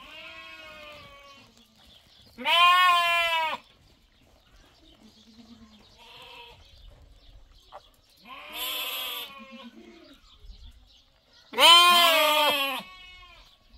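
Lambs bleating: four calls of about a second each, spaced out, the last the loudest.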